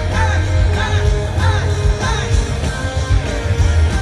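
Live pop-rock band heard through a stadium sound system: a male singer over electric guitar, bass and drums, with a heavy bass. The vocal line rises and falls in short phrases, then turns to held notes about halfway through.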